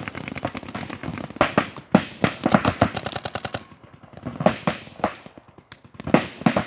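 Paintball markers firing rapid strings of shots, several guns going at once. The strings come and go, densest about two and a half to three and a half seconds in, with a short lull just after.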